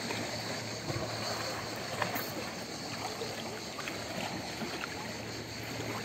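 Calm seawater lapping and trickling in the shallows: a steady wash of water noise with a few faint small splashes.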